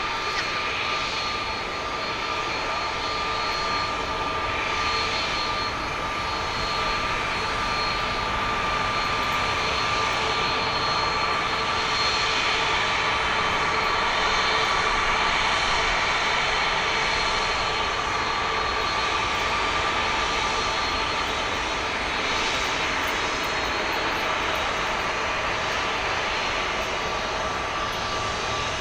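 Airbus A330-300's Pratt & Whitney PW4000 turbofan engines running as the airliner lands: a steady jet rush with high whine tones, growing louder to a peak around the middle and easing off slightly toward the end.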